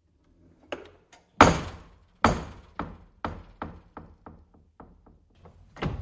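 Wooden screen door on a metal spring hinge banging shut against its frame: a few light clicks, two loud bangs about a second apart, then a run of fading knocks about three a second, and another bang near the end.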